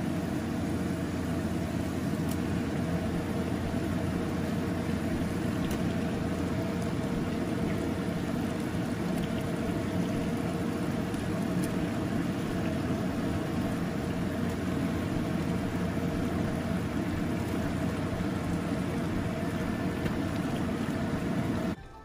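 Steady low rushing hum with a few faint steady tones in it, the running noise of the stove area, which cuts off abruptly shortly before the end.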